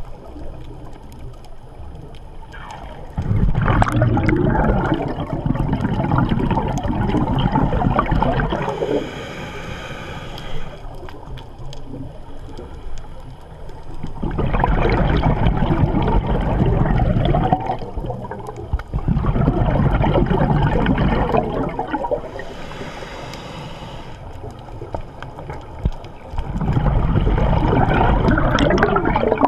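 Scuba diver breathing through a regulator underwater: four long bursts of bubbling exhalation, each a few seconds long. Between two pairs of them comes a shorter hiss of air drawn in through the regulator.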